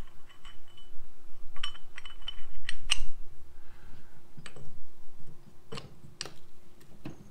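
Steel axle shaft halves and a splined coupler clinking and knocking as they are handled and slid together on a table. This is the factory two-piece front axle shaft of a Jeep Wrangler JL. There are scattered sharp clicks, the loudest about three seconds in.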